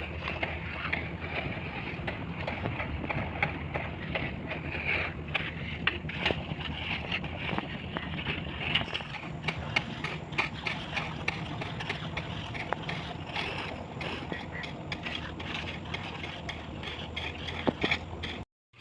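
Construction machine engine running with a steady low hum, with frequent light knocks and scrapes of concrete work over it. The sound cuts out briefly near the end.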